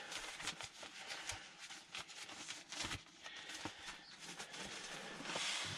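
A dry bag of clothes being rolled and pressed to squeeze the air out: crinkly rustling of the bag's fabric with small knocks, and a louder burst of rustling near the end.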